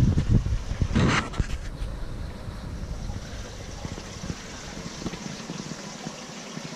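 Wind buffeting the microphone of a handheld camera as it is carried and panned, with a few low bumps and a short rustle in the first second and a half, then a steady background hiss.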